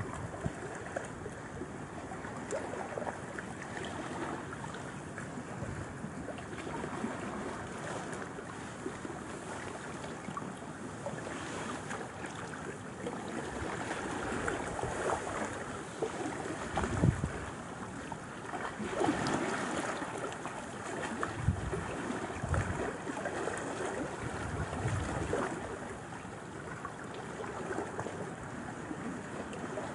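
Choppy loch water lapping and splashing against a boulder and tree roots at the shoreline, a steady wash of small wind-driven waves with a few heavier splashes in the second half.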